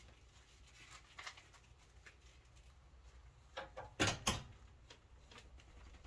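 Sharp clacks and knocks of a fuse puller working a cartridge fuse in the fuse clips of an electrical service panel, a few faint clicks first and then a quick cluster of louder knocks about four seconds in, over a low steady hum.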